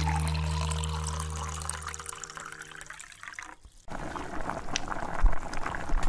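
Water pouring in a thin stream from a small can into an aluminium drink can, a trickling, splashing fill. Partway through it gives way to rustling handling noise with a soft thump about five seconds in.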